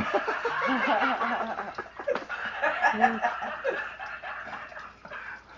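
People laughing in chuckles and snickers, dying down near the end.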